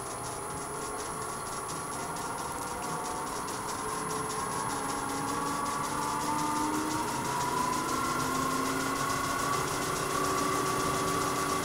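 Wood lathe running with a large rough wood blank spinning on it, its motor whine slowly rising in pitch and getting louder as the speed is turned up.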